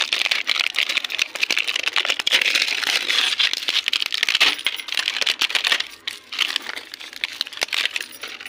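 Plastic alphabet letters clattering and scraping against gritty sand and concrete as they are dug out and handled: a dense run of small clicks and crackles that thins out about six seconds in.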